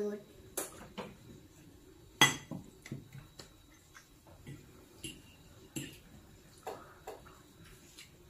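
Metal forks clinking and scraping against ceramic plates as noodles are eaten, in scattered irregular clicks, the sharpest about two seconds in.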